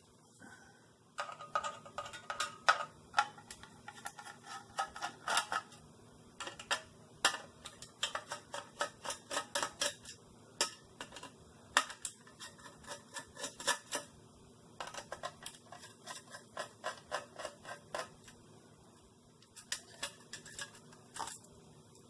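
Runs of rapid metallic clicking and scraping as a screwdriver and fingers work a sheet-metal shield cover loose from an LED monitor's circuit board, with a short break about two-thirds of the way through.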